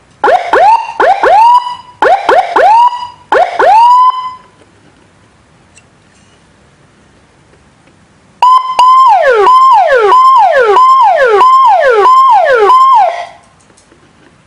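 Electronic siren module sounding through a horn loudspeaker: first three short bursts of quick rising whoops, then after a pause a run of about eight falling wails repeating about every half second, as the siren tones are switched.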